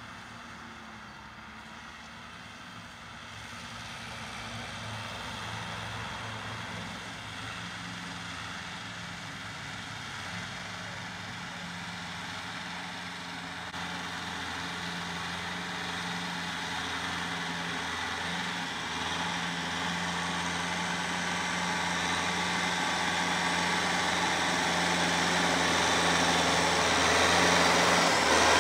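Tractor diesel engine running steadily under load while driving a rear rotary tiller through field soil. It grows steadily louder through the second half as a red Kubota M6040 comes closer.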